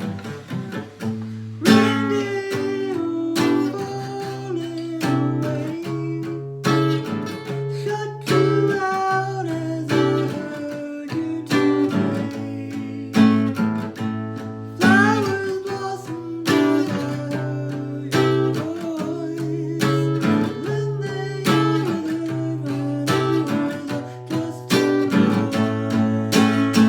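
Instrumental break in a song: an acoustic guitar strums chords at a steady pace, with a melody line moving over them.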